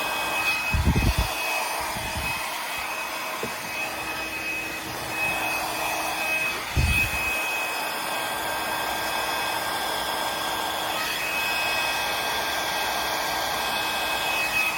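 Flower hair dryer running steadily, blowing air with a constant high whine over its rushing noise. Two low thumps come about a second in and again about seven seconds in.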